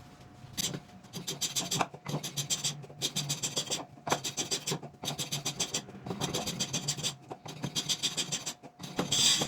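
Hand tool scraping across wood in repeated back-and-forth strokes, about one stroke a second with brief pauses between them, the loudest stroke near the end.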